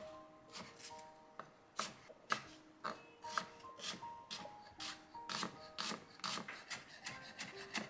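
Light instrumental background music with a simple melody, over irregular sharp knocks and scraping, several a second.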